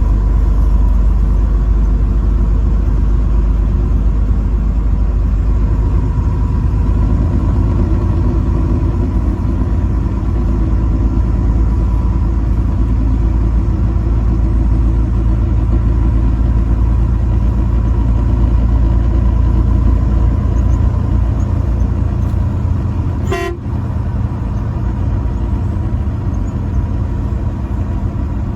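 Motor vehicle driving on a road: a steady low rumble of engine and road noise that eases off slightly near the end. A single brief sharp sound comes about three-quarters of the way through.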